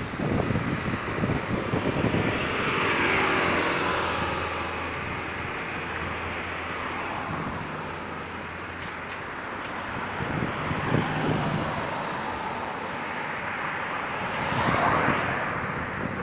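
Road traffic: vehicles passing on the road, their tyre and engine noise swelling and falling away, one pass-by about three seconds in and another near the end.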